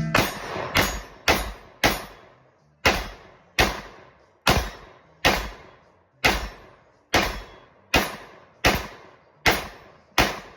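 AR pistol in 5.56 NATO firing about fourteen single shots at a steady pace, a little under a second apart, each shot trailing off quickly.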